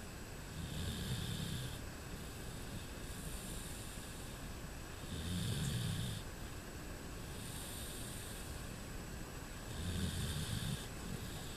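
A dog snoring in its sleep: three low snores about four to five seconds apart, with a soft breathy hiss between them.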